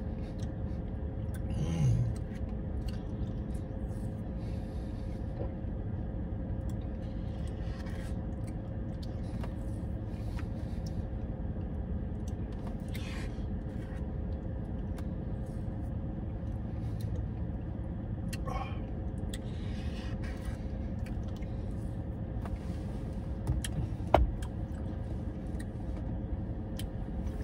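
Steady low hum inside a parked car's cabin, with faint scattered clicks and scrapes of a plastic spoon in a paper cup of frozen dessert as it is eaten. A short voiced "mm" comes about two seconds in.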